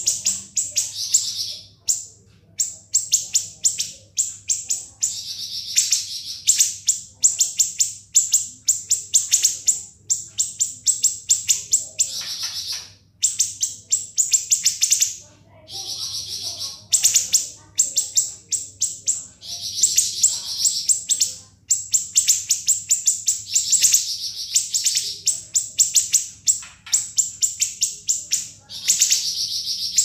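Siri-siri bird singing in long, rapid rattling runs of sharp, shrill high notes packed tightly together (the 'ngebren' rattle), broken by short pauses about every few seconds.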